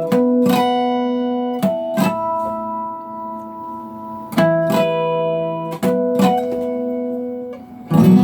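Acoustic guitar strummed in pairs of chords about half a second apart, each chord left to ring and fade for a second or more before the next pair. The loudest strum comes near the end.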